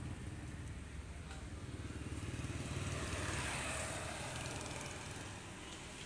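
A small engine running nearby: a low, rapidly pulsing rumble that grows a little louder around the middle, then fades.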